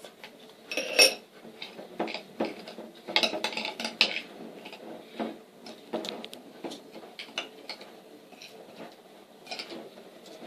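A spoon stirring slime, coloured glue mixed with borax water, in a container, giving irregular clinks and scrapes against the sides, the sharpest about a second in.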